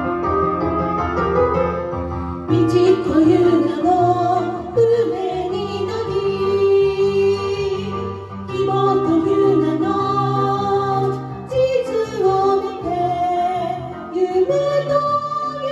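Two women singing a duet into microphones over a karaoke backing track. The voices come in about two and a half seconds in, after a short instrumental lead-in.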